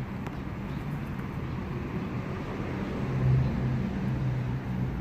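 A steady low motor hum over background noise, swelling briefly about three seconds in.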